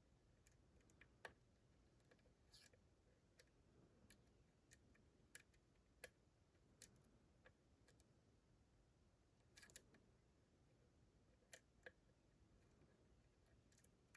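Faint, irregular small metallic clicks of a lock pick working the pins of a Dorma DC500 lock cylinder under tension, with a few sharper clicks as pins shift.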